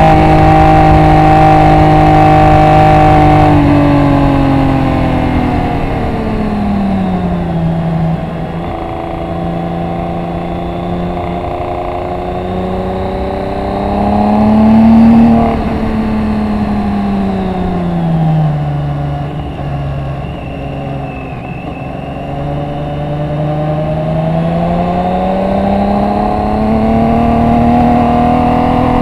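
BMW K1600GT's inline-six engine on the track, heard from on board: held at high revs at first, then dropping as the bike slows for a corner, rising again to its loudest near the middle, falling once more, and climbing steadily in pitch through the last third.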